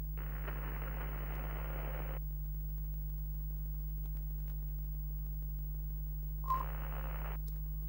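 Old-television sound effect: a steady low electrical hum with two bursts of static hiss, the first lasting about two seconds, the second shorter near the end and opening with a short beep.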